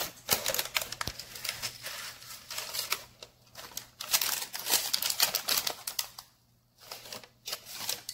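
Parchment paper crinkling and crackling in quick irregular clicks, in bursts with a couple of short pauses, as it is handled around a knife scoring risen sourdough dough in a Dutch oven.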